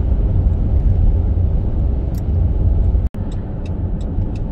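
Steady road noise of a car driving, heard from inside the cabin: a low rumble of tyres and engine. It cuts out for an instant about three seconds in.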